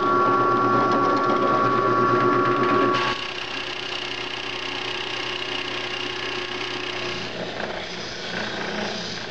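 Drill press running a 40 mm Forstner bit as it bores through a wooden featherboard, loudest in the first three seconds and then quieter and steadier. About seven seconds in it gives way to a spindle sander running as a drilled hole is sanded.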